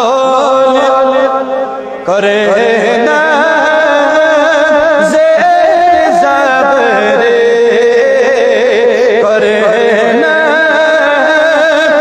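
A man's voice singing a naat, a devotional Islamic poem, in long ornamented lines with a wavering pitch. The voice dips briefly after about a second, then comes back in on a rising note.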